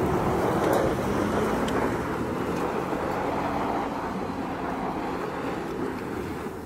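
Jeep pickup truck's engine running hard as it does donuts on loose dirt, with a steady rushing noise from the tyres and dirt that slowly fades.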